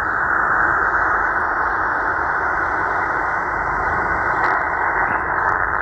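Sihuadon D-808 shortwave receiver's speaker giving a steady, muffled hiss of static on an empty CB frequency in single sideband: no signal, only band noise.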